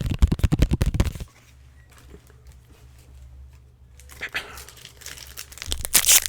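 Crinkling and rustling of a foil Pokémon booster pack wrapper and trading cards being handled: a dense burst for about the first second, a quiet pause, then more crinkling from about four seconds in, growing louder near the end.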